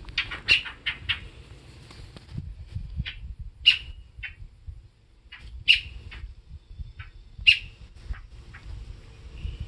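Fledgling bird calling: short, sharp, high chirps, a quick cluster at the start and then one about every two seconds.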